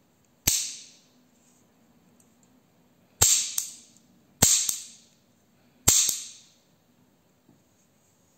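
Four shots from a 7mm Lefaucheux pinfire revolver, small sharp cracks each followed by a short fading ring. The first is alone; the other three come in quicker succession about one to one and a half seconds apart.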